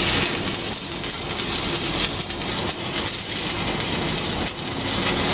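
Electric arc welding: the arc crackles and sizzles steadily throughout.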